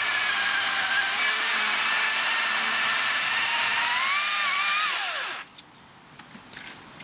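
Makita 40-volt cordless top-handle chainsaw cutting through a log. The motor's pitch rises as the chain breaks through, then the trigger is released and the motor winds down and stops about five and a half seconds in, followed by a few light clicks.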